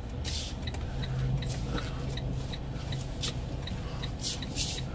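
Semi truck's diesel engine running low as heard inside the cab, rolling slowly, with a faint rapid ticking about three or four times a second and a few short hisses.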